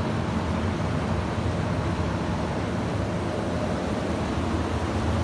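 Fans of Buffalo Trident evaporators in a walk-in cold room running, a steady hum and rush of air.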